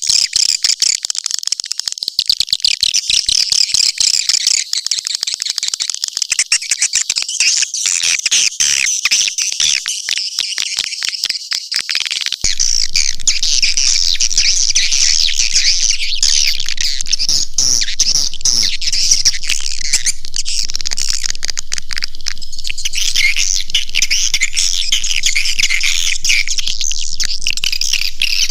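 Dense, continuous high chattering and twittering of swiftlets: a recorded swiftlet caller sound, played to lure swiftlets into a nesting house. About twelve seconds in it gives way to a louder, more even track over a faint low hum.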